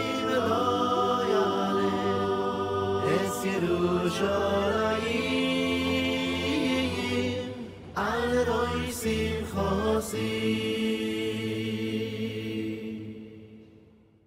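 Group of men's voices chanting a prayer melody together, with long held notes and slow slides in pitch; the chanting fades out over the last two seconds.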